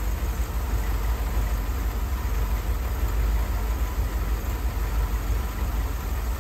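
A Ford 400 cubic-inch V8 idling steadily, a low, even running sound.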